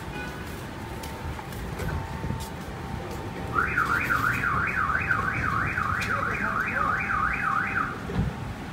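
Car alarm siren sweeping rapidly up and down in pitch, about two and a half sweeps a second, starting about three and a half seconds in and cutting off about a second before the end, over a steady low street noise.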